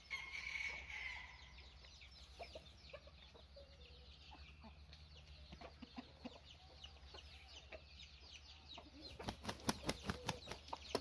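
A junglefowl rooster gives a call about a second long at the start. Small birds chirp throughout, and near the end the rooster beats its wings in a quick run of flaps.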